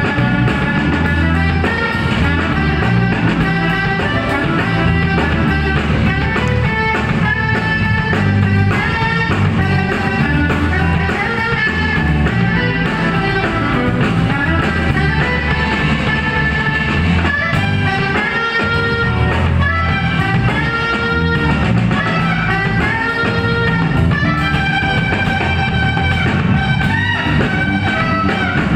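A live band playing: a saxophone carries the melody over electric bass, electric guitar and a drum kit.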